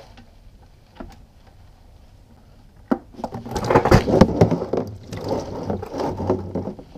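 Hot engine oil from a Mercury 60 hp four-stroke outboard pouring out of the drain hole into an oil drain pan: a couple of small clicks as the drain plug comes free, then a fast splashing stream starting about three seconds in.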